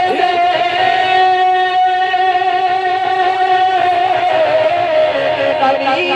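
A man singing a naat holds one long, high vowel through a microphone and PA. The note stays level for several seconds, then wavers and steps down near the end.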